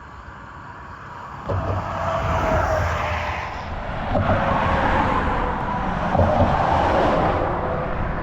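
A car driving by: its tyre and engine noise builds about a second and a half in and stays loud.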